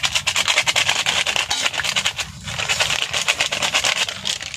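Food sizzling and crackling in a hot cooking pan, a dense run of small pops over a steady hiss, with a low hum underneath; it cuts off sharply near the end.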